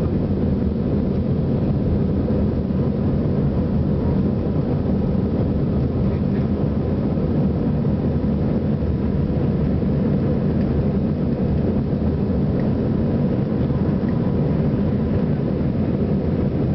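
Cabin noise of an Airbus A320-family airliner's jet engines at takeoff thrust during lift-off and initial climb, heard inside the cabin: a steady, deep rumble.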